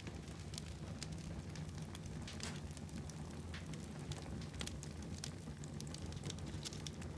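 Fire burning in a fireplace, crackling with frequent irregular sharp pops over a steady low rumble.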